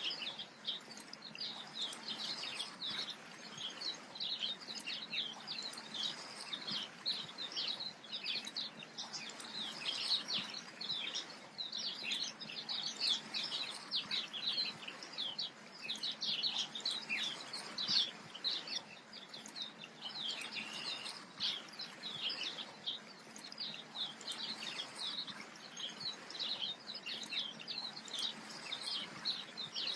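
Many small birds chirping continuously in a dense chorus of short, high-pitched chirps.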